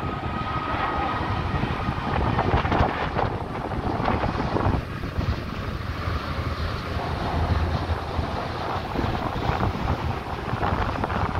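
Jet noise of a Boeing 787-9 airliner passing low overhead on landing approach, mixed with wind gusting on the microphone. A faint high whine sits over it in the first second or so.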